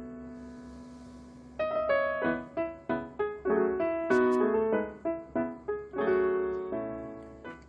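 Background music: a solo piano or electric piano, a held chord fading away, then a light run of single notes about a second and a half in, ending on a chord that fades out.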